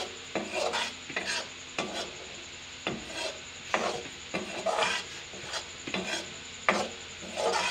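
Steel spatula stirring and scraping a bubbling paste of roasted gram flour (besan), cumin and red chilli powder around a kadai, about a dozen quick scraping strokes over a light sizzle of the oil.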